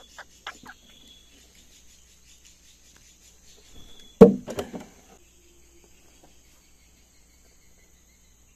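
Steady faint high insect buzz, with a few small clicks near the start. About four seconds in comes a single loud knock on the boat, followed by a brief rattle.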